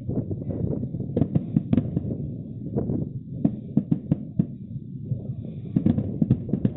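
Fireworks going off in rapid, irregular succession: many overlapping bangs and booms, several a second, with no pause.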